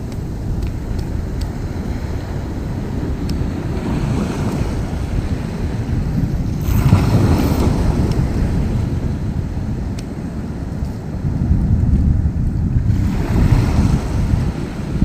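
Wind rumbling on the microphone over seaside surf, with two louder surges as waves wash in, about halfway through and near the end.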